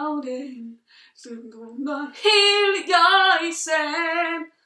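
A woman singing a cappella: a short sung phrase that ends just under a second in, then after a brief pause a longer line of held notes.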